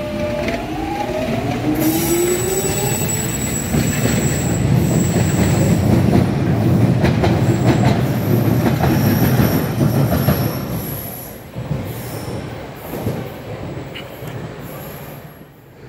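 London Underground Jubilee line 1996 Stock train moving out along the platform. Its traction motors whine, rising in pitch as it gathers speed, then comes a loud rumble of wheels on rail with high-pitched wheel squeal. The rumble dies down about eleven seconds in.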